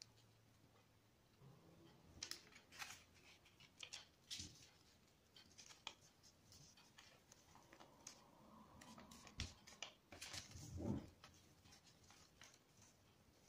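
Faint rustling and crinkling of a sheet of coloured craft paper being folded and creased flat by hand against a tabletop, in short scattered bursts, with a soft thump near the end.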